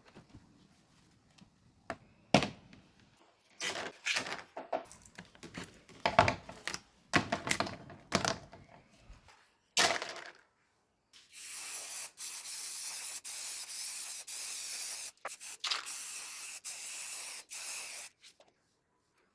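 Irregular knocks and rubbing from parts being handled, then, from about 11 seconds in, an aerosol spray can hissing in several long presses with short breaks between them: spray-painting parts of a mini ceiling fan.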